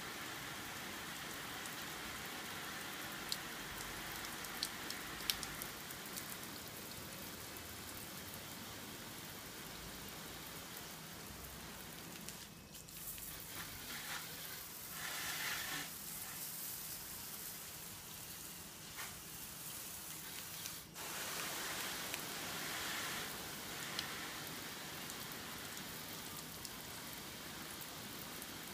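A spray of water hissing and pattering like rain on a corrugated plastic roof and mud wall during a water test. The hiss rises and falls as the spray moves, dipping briefly about 12 and 21 seconds in.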